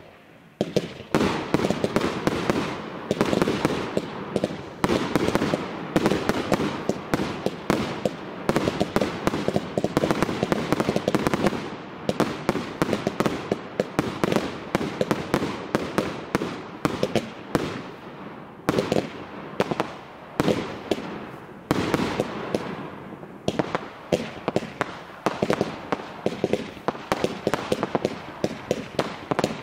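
Fireworks display: a rapid, continuous barrage of aerial bursts and crackling, several bangs a second with hardly a pause.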